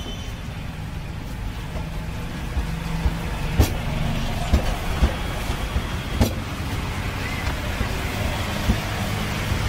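Steady low rumble of street traffic and engines, with two sharp knocks about three and a half and six seconds in, from a metal scraper striking a wooden dough board, and lighter taps between them.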